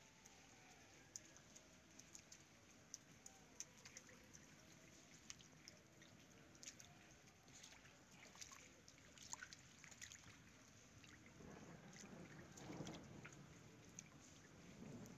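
Faint dripping of rainwater and scattered light raindrops after a downpour, with a low rumble swelling briefly late on.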